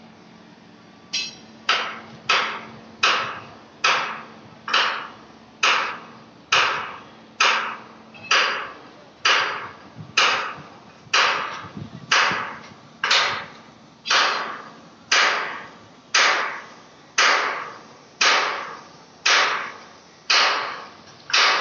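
Hammer blows at a steady pace of about one a second, each a sharp ringing strike that dies away before the next, likely from work on the new line.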